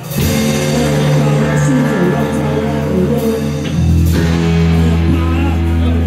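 A live rock band playing loud, with distorted electric guitar, bass guitar and drums. The band comes back in together on a cymbal crash right at the start after a momentary break. A male voice sings over it at times.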